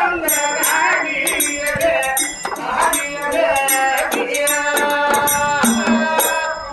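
Live folk devotional singing with long held notes, accompanied by hand percussion that gives a sharp high clink about twice a second.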